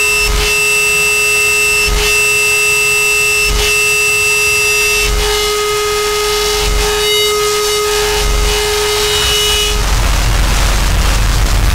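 Harsh electronic noise music: a steady mid-pitched drone with a stack of shrill overtones, over a low thump that pulses about every one and a half seconds. Near the end the drone cuts off and a dense wall of rumbling noise takes over.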